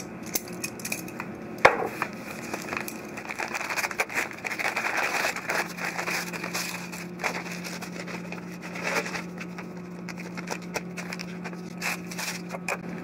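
A paper mailer envelope being torn open and its packing rustled and crinkled by hand, with a sharp snap about a second and a half in and the busiest crinkling in the middle.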